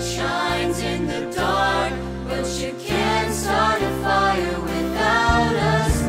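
Music: young voices singing a song over an instrumental accompaniment with held low notes that change about once a second.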